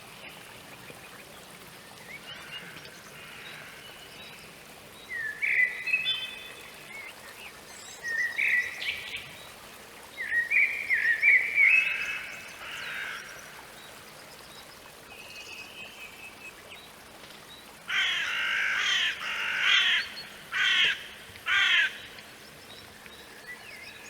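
Wild birds calling: several phrases of short chirping whistles, then a run of harsh, rasping calls near the end.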